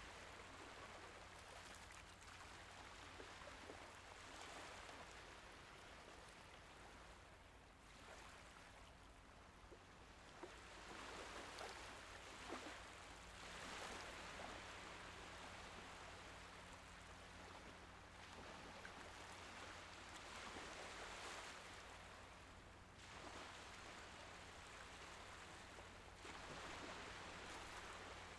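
Faint, gentle sea waves washing in and drawing back, each wash swelling and fading over a few seconds with a fine fizzing crackle.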